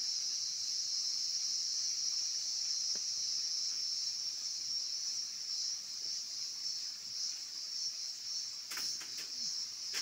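Steady, unbroken high-pitched drone of insects chirring in the vegetation, with a few sharp clicks about a second before the end.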